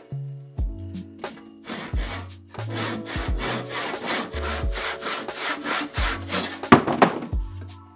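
Rusty hand saw cutting through planed softwood timber in quick back-and-forth strokes, starting about two seconds in, getting louder toward the end and stopping shortly before the end. Background music plays underneath.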